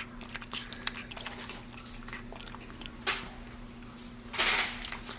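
Capuchin monkey eating juicy watermelon: small wet clicks and smacks of biting and chewing, with a short louder slurp-like noise just past halfway and a longer one near the end as he gets at the juice.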